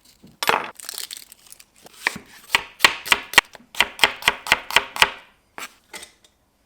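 Knife chopping vegetables on a chopping board: a quick run of about a dozen sharp strokes, roughly four a second, through the middle, then a few scattered knocks.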